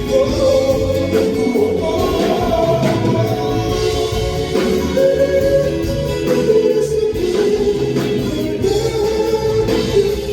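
Live pop band music with singing, heard through a concert hall's sound system.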